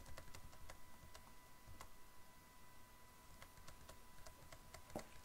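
Faint, irregular clicks of computer keyboard keys being pressed to delete text, with a slightly louder click near the end. A faint steady high whine runs beneath.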